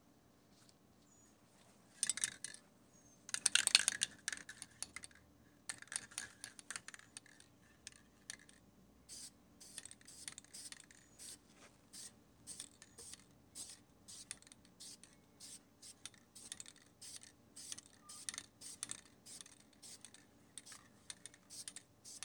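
Aerosol spray paint can sprayed in short hissing bursts. There are two louder sprays about two and four seconds in, then a long run of quick bursts, roughly one or two a second.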